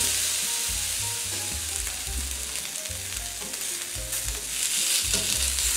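Thin beef steak sizzling in hot oil in a nonstick frying pan over high heat, browning on its second side. The sizzle is a steady, even hiss.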